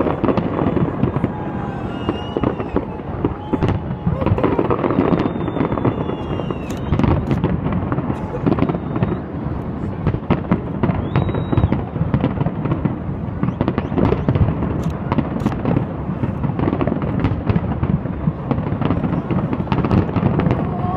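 Fireworks display: a dense, continuous barrage of bangs and crackling from aerial shells bursting one after another, with voices of the crowd underneath.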